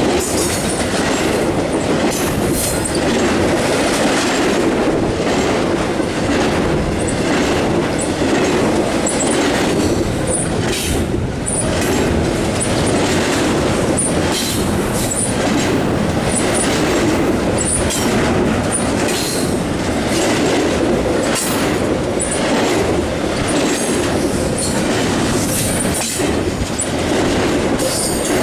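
Norfolk Southern intermodal train's double-stack container and trailer cars rolling past, loud and steady, wheels clacking over rail joints with short high-pitched wheel squeals now and then.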